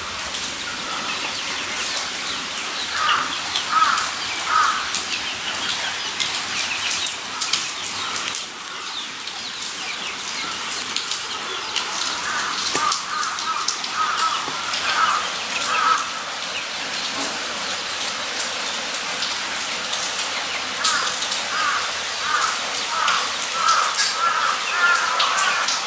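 Guinea pigs making runs of short, squeaky clucking calls, several notes a second, with a constant crackly rustle of fur and clicking claws on a wire-mesh floor close to the microphone.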